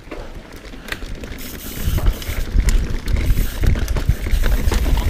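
Mountain bike riding down a dirt trail: tyres rolling and the bike clicking and rattling over the ground, with a wind rumble on the microphone that grows much louder about two seconds in.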